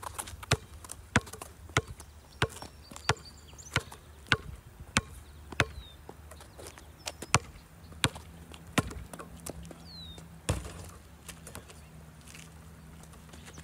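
Basketball dribbled on asphalt: a steady bounce about every two-thirds of a second for around nine seconds, then a single louder thump about ten seconds in.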